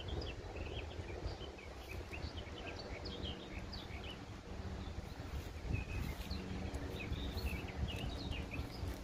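Small birds chirping in quick, scattered calls over a low rumble.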